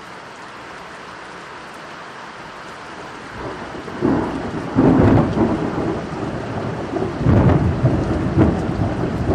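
Steady rain falling, then about four seconds in a loud, powerful thunderclap that rumbles on, surging again a few seconds later.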